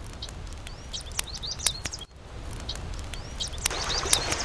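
Small birds chirping in short, repeated calls. About three and a half seconds in, the steady rush of fast-flowing creek water comes in under them.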